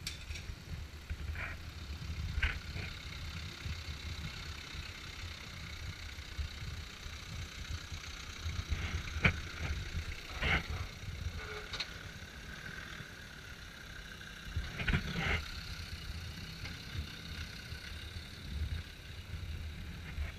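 Off-road Land Rover and Jeep 4x4s crawling slowly over a rutted forest dirt track, their engines running low and steady. Scattered sharp clicks and knocks come through, the loudest in the middle.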